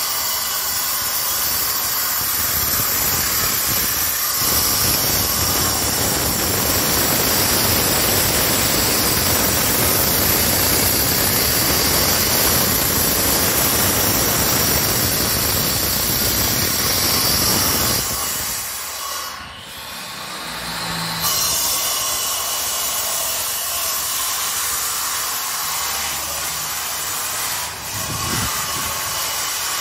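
Electric angle grinder cutting channels into a concrete block wall for electrical conduit: a loud, steady grinding that breaks off about eighteen seconds in and starts again a few seconds later, somewhat quieter.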